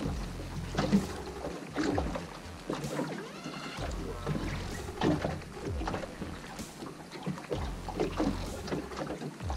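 Wind buffeting the microphone and water slapping against a small aluminium bass boat's hull, with scattered short knocks from tackle and the rod being handled on the deck.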